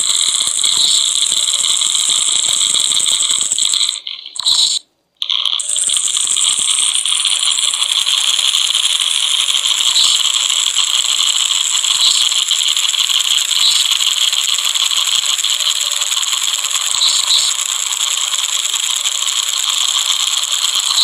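Steady, harsh, high-pitched rattling noise, cutting out for about a second around four to five seconds in, then running on.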